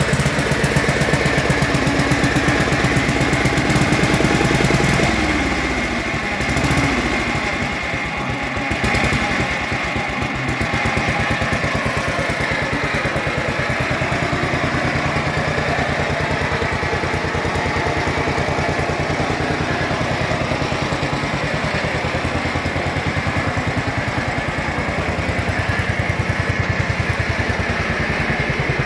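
The engine of a 1964 Rapid 606 running with a fast, even beat. About five seconds in the revs drop, with two short blips, then it settles into a steady idle that picks up slightly near the end; it runs smoothly, in good working order.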